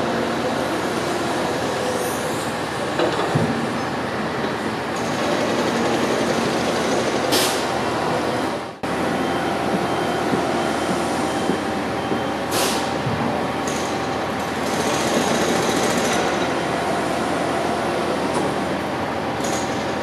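Construction site din of heavy diesel machinery running steadily, with two short bursts of air hiss, about seven and twelve seconds in.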